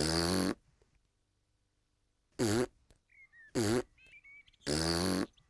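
A cartoon piglet hiccuping four times, each hiccup a short, sharp voiced sound: one right at the start and three more from about two and a half seconds in, roughly a second apart. The hiccups show that the hiccup cure has not worked.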